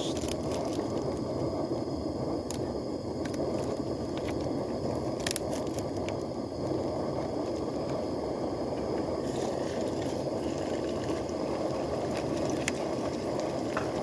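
Gas burner of a Trangia stove running at a steady roar under a frying pan, with a few sharp clicks over it.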